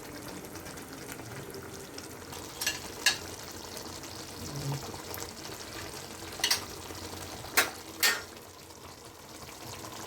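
Pan of quail gravy cooking on the stove, a steady sizzling and bubbling, with five sharp clinks of a stirring spoon against the pan: two close together about a third of the way in, three more past the middle.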